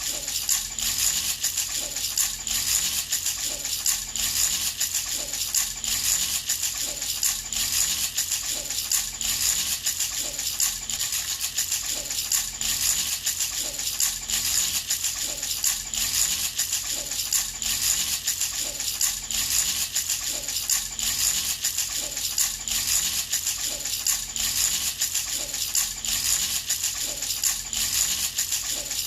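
Baby rattle shaken over and over in a steady, even rhythm, a continuous bright jingling of small beads or pellets inside it.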